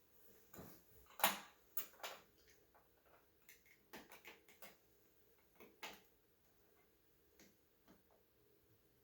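Irregular small clicks and taps of tiny parts of a diecast crane model being handled and fitted by hand, most of them in the first six seconds, with the loudest about a second in.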